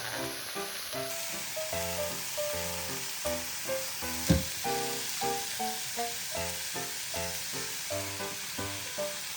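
Chopped onion and carrot sizzling in olive oil in a frying pan, with a single sharp knock about four seconds in. Background music with a light, plucked melody plays throughout.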